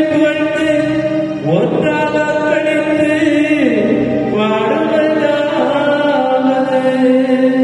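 A church hymn: voices singing a slow, chant-like melody over a sustained instrumental accompaniment.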